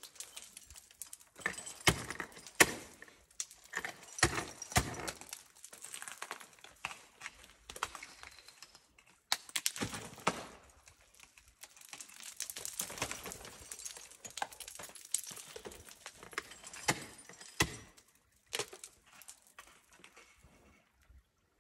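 Ice tools and crampons striking and scraping into hard ice: irregular sharp knocks with crunching between them, thinning out near the end.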